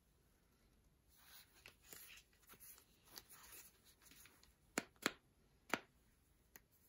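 Soft rustling of headphone packaging being handled, then three sharp clicks in quick succession about five seconds in, with a fainter click near the end.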